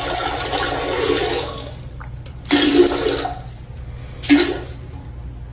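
Water rushing, loud at first and fading after about a second and a half, followed by two shorter gushes.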